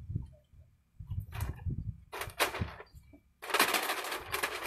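Plastic bags crinkling and rustling in bursts as fish are handled. The bursts come about a second in and again about two seconds in, and the loudest runs through the last second and more, over a low rumble.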